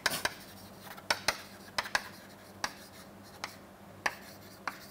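Chalk writing on a chalkboard: a string of short, irregular taps and scratches as the chalk strikes and drags across the board, about a dozen strokes, over a faint steady hum.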